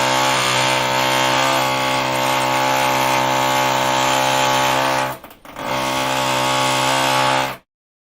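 Electric drill running at a steady speed with an even motor whine, cutting out briefly a little after five seconds in, running again, then stopping shortly before the end.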